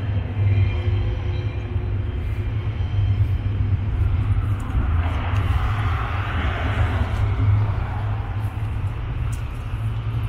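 A road vehicle passing, its tyre and engine noise swelling from about four seconds in and fading away near the end, over a steady low rumble.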